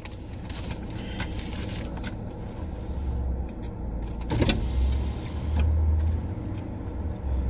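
Low rumble inside a car cabin, swelling and easing a few times, with a few light clicks.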